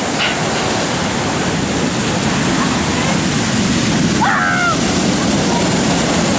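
Storm surf on the Black Sea: a steady, loud rush of large breaking waves. A brief high cry sounds about four seconds in.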